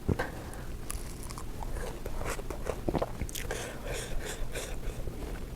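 Close-up mouth sounds of a person biting and chewing crunchy food, with sharp crunches scattered through and a denser run of crisp crunching about midway.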